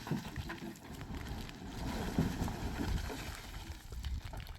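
Wind rumbling on the microphone, with a few faint knocks.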